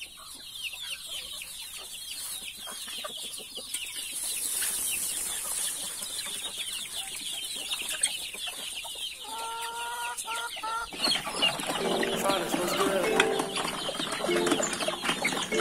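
Backyard chickens clucking and calling, over a constant run of short high chirps. A louder hen call comes about nine seconds in, and the clucking grows busier over the last few seconds.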